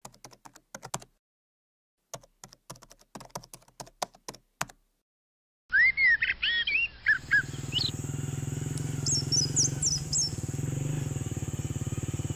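Two short runs of quick, sharp clicks, then from about halfway birds chirping over a steady engine hum and a constant high whine.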